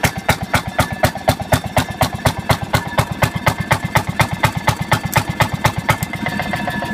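1952 Fairmont M14 railroad motorcar's engine idling with slow, even firing pulses, about five or six a second. Shortly after six seconds it picks up speed into a quicker, smoother run.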